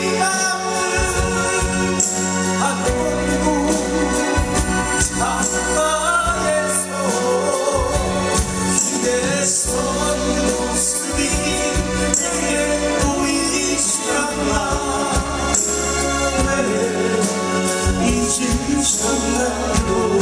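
Live folk-pop band playing: strummed acoustic guitars with electric guitar and bass, under male voices singing the melody.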